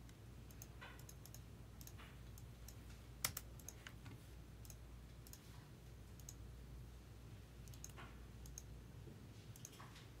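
Faint computer mouse clicks and keyboard keystrokes, scattered and irregular, with one sharper click about three seconds in.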